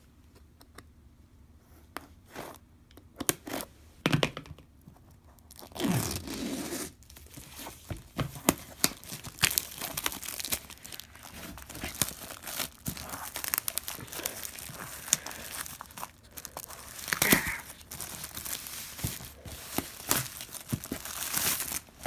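Packaging of a collectible jersey box being torn open and handled: tearing and crinkling with sharp clicks and taps. It starts with a few scattered taps and turns into near-continuous crackling about six seconds in.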